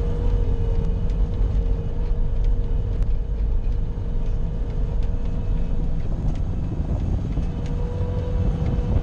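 Bobcat skid-steer loader's engine running steadily while plowing snow: a deep continuous rumble with a steady whine held over it.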